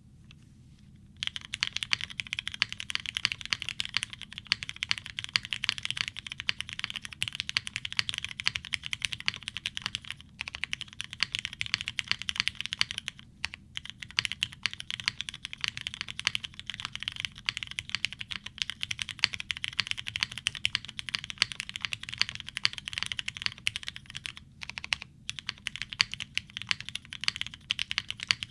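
Fast, continuous typing on a TGR Jane V2 ME custom mechanical keyboard with broken-in, lubed and filmed Cherry MX Black linear switches on a POM plate, O-ring mounted, with GMK keycaps. Dense keystroke clacks begin about a second in and keep going, with a few short pauses.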